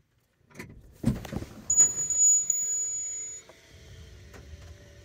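Rear liftgate of a 2009 Chevrolet Suburban opening on the key fob's command. A thud about a second in is followed by a high steady tone with a few beeps, then a steady motor hum.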